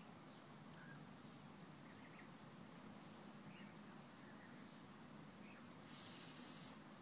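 Faint high peeps of Canada goose goslings heard through a closed glass door, over a low hum. A sharp click about three seconds in, and a short hiss about six seconds in.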